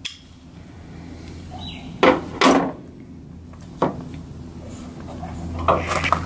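Knocks and clicks of hand tools and hardware handled at a metal bus bay door: two sharp knocks about two seconds in, another near four seconds, and a run of small clicks near the end, over a steady low hum.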